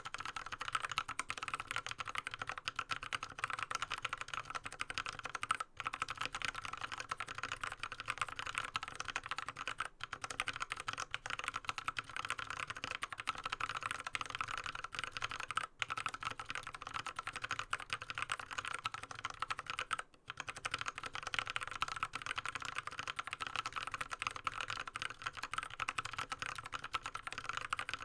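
Continuous fast typing on a Drop CTRL High-Profile mechanical keyboard with an aluminium plate and Krytox 105-lubed Kailh Speed Bronze clicky switches, a dense stream of crisp clicks, broken by a few brief pauses.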